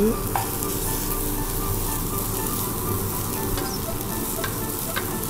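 King oyster and pocket mushroom strips dry-frying in a nonstick wok without oil, sizzling steadily as their moisture is cooked off, with a few light taps of the wooden spatula as they are stirred.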